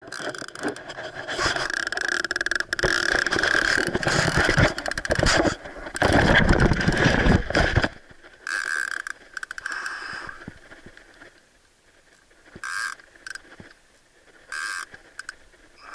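Clothing rubbing and scraping against the action camera's microphone, loud for about the first eight seconds. After that it goes quiet except for a few short bursts of fast clicking.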